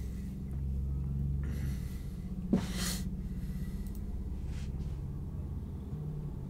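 A person breathing through the nose: a short breath about a second and a half in and a louder, sharper one about two and a half seconds in that starts with a click, over a steady low hum.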